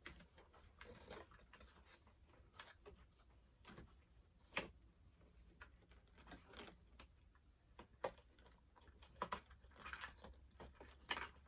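Faint, scattered clicks and taps of small plastic doll packaging and accessories being handled, with one sharper click about four and a half seconds in.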